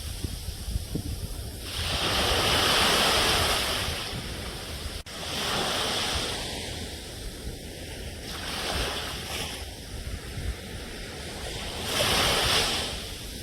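Sea waves washing onto a shore, swelling and falling back about every three to four seconds, with wind on the microphone. The sound drops out for a split second about five seconds in.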